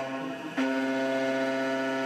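Two-flute carbide end mill face-milling aluminum on a CNC gantry mill at 8000 RPM, a steady pitched whine from the cut, on the 45-thou roughing pass. The cut eases off at the start, then the cutter bites back into the metal about half a second in.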